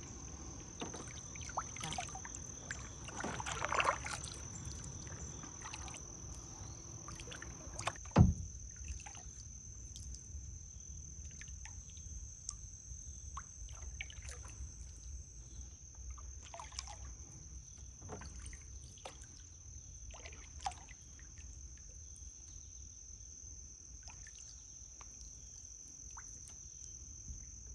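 Kayak paddle dipping and dripping in calm swamp water, with small scattered splashes and drips. Under it a steady high-pitched insect drone. One sharp knock about eight seconds in is the loudest sound.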